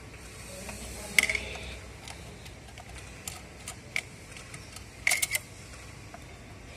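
Screwdriver clicking and scraping against the terminal screws of a motor starter's contactor as wires are fitted: scattered sharp metallic clicks, the loudest about a second in and a quick cluster of them near the end.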